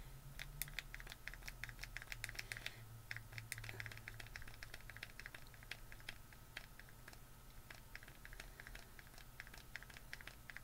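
Plastic pump on a small 111Skin bottle clicking as it is pressed rapidly again and again, several clicks a second, thinning out in the second half. No product comes out: the pump is not dispensing.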